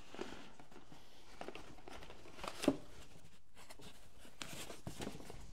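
Faint rustling and light clicks of hands handling a cardboard box and a foam sheet around a spool of fishing line, with one sharper tap about two and a half seconds in.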